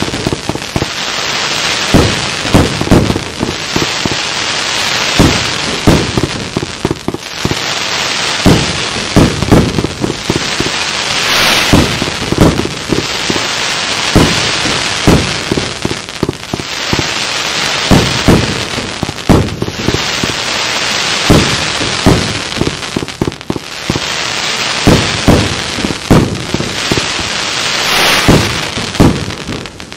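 A 100-shot compound fireworks cake firing in quick succession: loud shots with thick hissing tails and spider bursts, coming in clusters every second or two over a steady hiss.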